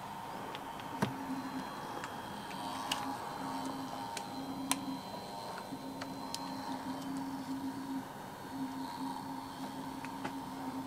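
Hasselblad H1 with a Leaf Aptus 22 digital back powered on: a low electronic hum that starts and stops several times over a faint steady whine, with a few small sharp clicks from handling the camera body.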